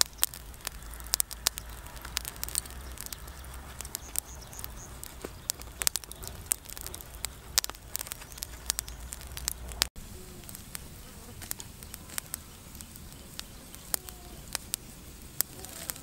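Charcoal fire crackling under a spit-roasting duck: irregular sharp pops and snaps, with a low rumble beneath them for the first ten seconds or so.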